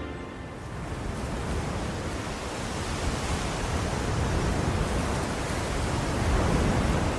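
Sea surf sound effect played over a PA: a steady wash of breaking waves that swells gently, with a low rumble underneath.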